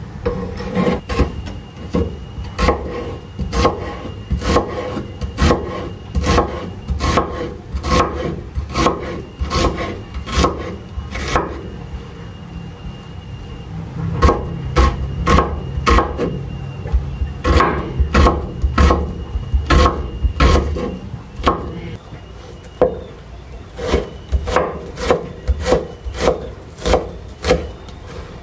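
Cleaver chopping tomato and onion on a wooden cutting board: sharp knocks of the blade on the board at about two a second, with a couple of short pauses.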